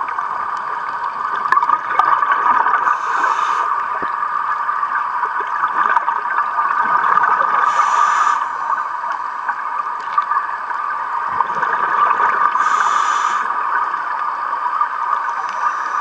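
Scuba regulator exhaust: a bubbly rush of exhaled air about every five seconds, three times, with the diver's breathing rhythm. Under it runs a steady underwater hum.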